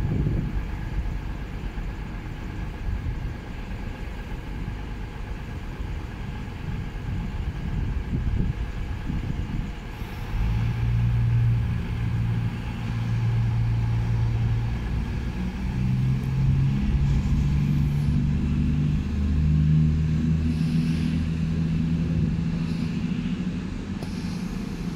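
Diesel train engines idling with a low rumble; from about ten seconds in, the engine note steps up in pitch several times as the engines are throttled up. This is most likely the CrossCountry Voyager diesel multiple unit at the platform powering up to move off.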